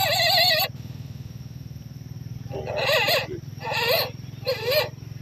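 An animal bleating in wavering, quavering calls. One long bleat cuts off less than a second in, then three shorter bleats follow about a second apart, over a steady low hum.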